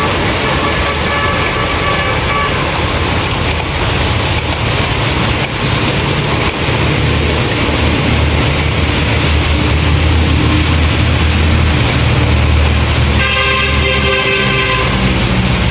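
Steady rain with the low rumble of street traffic. A car horn sounds for about two seconds near the end.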